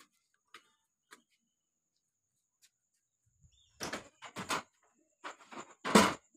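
Metal pipe frame of a woven charpai (string cot) knocking and clattering as it is shifted and set down, with several knocks from about four seconds in and the loudest bang about six seconds in.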